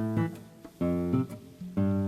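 Background music: acoustic guitar chords strummed about once a second.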